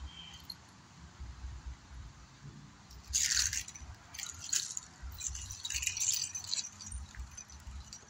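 Steel links of a nine-section chain whip jangling and rattling as it is swung. The sound starts about three seconds in with its loudest burst, then comes in repeated shorter rattles.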